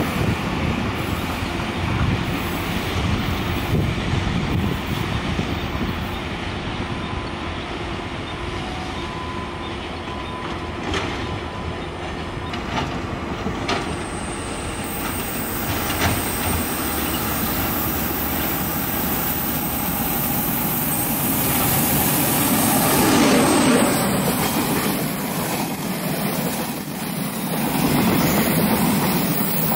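Passenger trains rolling slowly through a sharp curve: a steady rumble of wheels and running gear, with a few clacks over rail joints. Near the end a push-pull express's carriages pass close by, and the sound grows louder.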